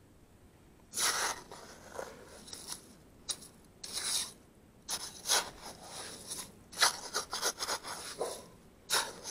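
Small three-pronged hand rake scraping and digging through gritty mudflat mud, in a run of irregular raking strokes that start about a second in and come faster near the end.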